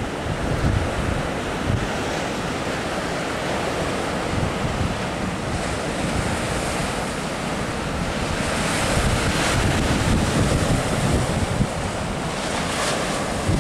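Sea waves breaking and washing over a rocky shore in a steady rush of surf, with wind buffeting the microphone in low gusty rumbles.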